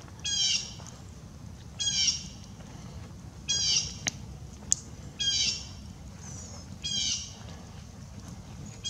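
A bird calling over and over, a short harsh squawk about every second and a half. Two sharp pops from the burning campfire wood come about halfway through.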